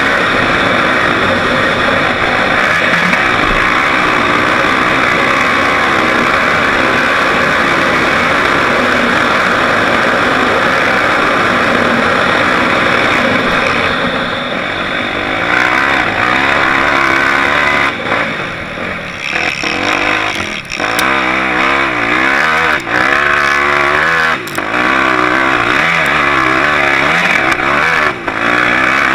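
Off-road vehicle's engine heard from an onboard camera, running hard across sand with a rush of wind noise. About two-thirds of the way through, the engine note starts rising and falling, with several short dips as the throttle is lifted and opened again.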